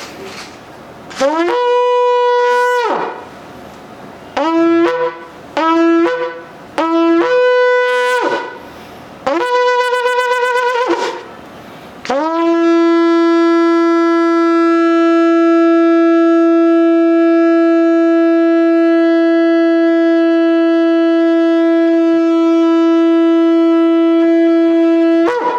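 Shofar being blown: a blast, three short blasts and another blast, each sliding up into its note, then one long steady held blast of about thirteen seconds at a lower pitch that cuts off near the end.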